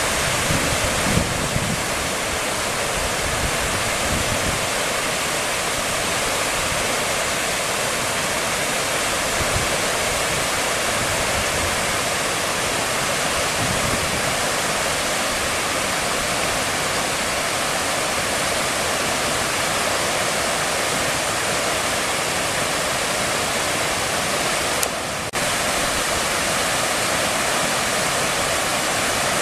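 Floodwater of the swollen River Timiș spilling over a low concrete weir and churning into whitewater: a loud, steady rush of water.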